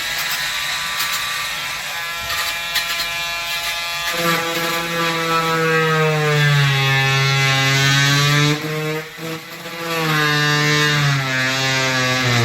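Cordless oscillating multi-tool running with a fast buzz. About four seconds in it grows louder and deeper, its pitch wandering up and down. Near the three-quarter mark it drops briefly, then picks up again.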